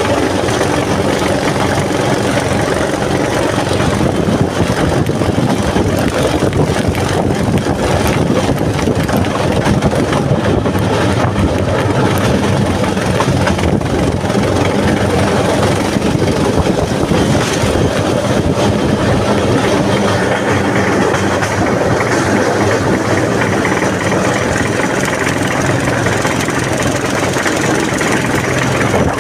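Engine of a home-built motor rail trolley running steadily under way at about 20 km/h, with its wheels rolling over the rails.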